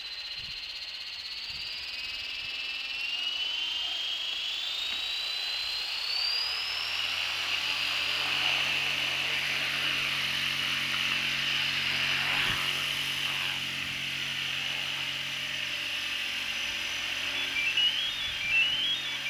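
High electronic tone from a prototype LiPo battery monitor's alarm. It glides slowly upward in pitch over the first several seconds, then holds steady, and near the end it changes to a quick series of short rising stepped chirps.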